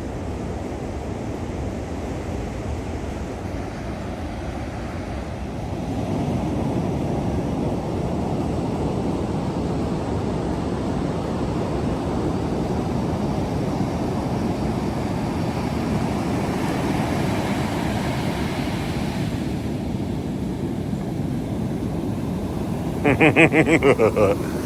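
Ocean surf breaking and rushing up the beach, with wind on the microphone: a steady low rush that grows louder about six seconds in. Near the end a person's voice makes a short pulsing sound.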